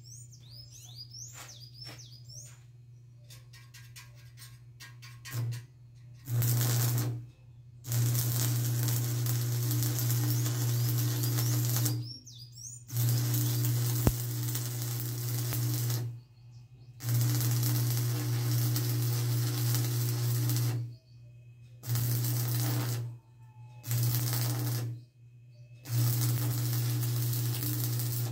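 Birds chirping, then electric arc welding in about seven runs of one to four seconds each: a loud hiss over a steady low hum, stopping briefly between runs.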